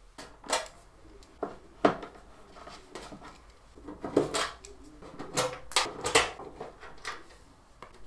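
Screwdriver working at the screws of a plasma TV's back cover: a string of irregular sharp clicks and clinks as the tip bites and slips in stripped screw heads.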